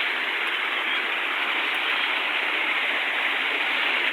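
A small waterfall on a forest river: steady rushing of falling water.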